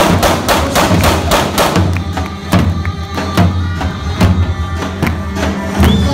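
Tapan, the large double-headed bass drum of Balkan folk music, beaten live with dance music: a quick run of strikes for about the first second and a half, then slower, heavier single beats.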